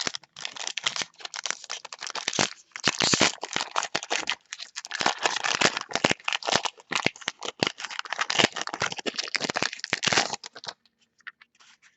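Foil trading-card pack wrapper crinkling and crackling as it is torn open and handled, in dense irregular bursts that stop about ten and a half seconds in.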